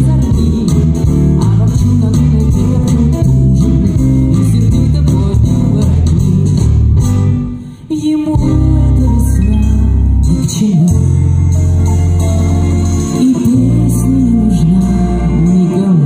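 Live pop song: a woman singing with a band of electric bass, electric guitar and drum kit, heard through the hall's PA. The music dips briefly a little before halfway, then the band holds long chords under her voice.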